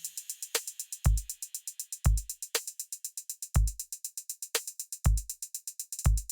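Drum-machine beat: rapid hi-hat ticks over a kick drum roughly once a second, with a snare-like hit every couple of seconds.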